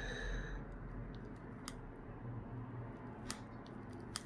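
A few faint, sharp clicks and taps of small parts being handled as the battery is set back into a Samsung Galaxy A20e smartphone during repair, three distinct clicks spread over the few seconds.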